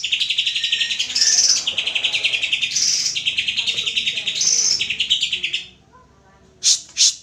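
A cucak hijau (green leafbird) singing a fast, rattling trill of rapidly repeated notes, with higher phrases woven in, that breaks off about six seconds in, followed by two sharp calls near the end.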